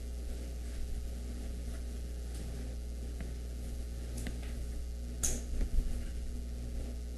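A few short taps and scrapes of chalk on a blackboard, the sharpest about five seconds in, over a steady low hum.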